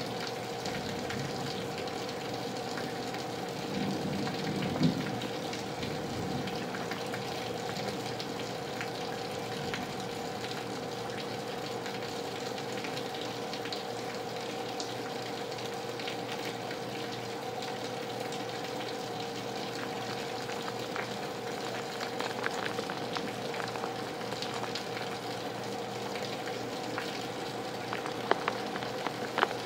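Heavy rain falling steadily, with scattered drips and patters from leaky gutters over a faint steady hum. A brief low rumble comes about four seconds in.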